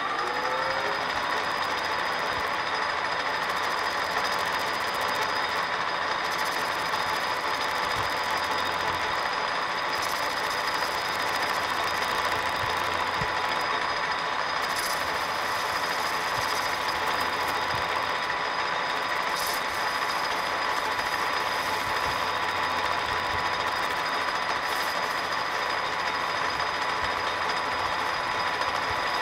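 Metal lathe winding up to speed in the first second, then running steadily with a level whine from its motor and gearing as the four-jaw chuck spins.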